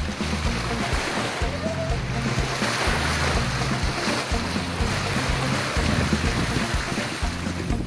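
Background music with a bass line changing in even steps, over a steady rush of wind and sea water.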